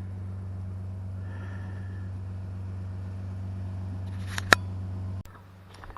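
A steady low mechanical hum with a sharp click about four and a half seconds in. The hum cuts off suddenly soon after.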